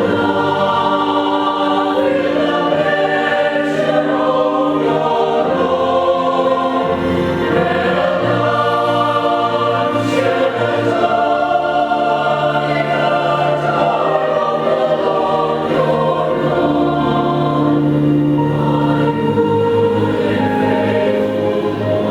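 Church choir singing a sacred anthem in several parts, holding long chords that change every few seconds.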